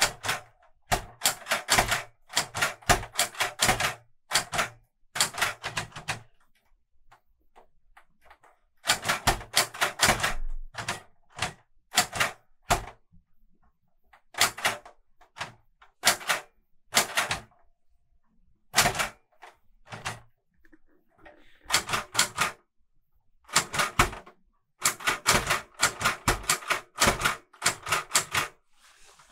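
Clover 810S manual Hangul typewriter being typed on: runs of quick keystrokes, each typebar clacking against the platen, broken by pauses of a second or two.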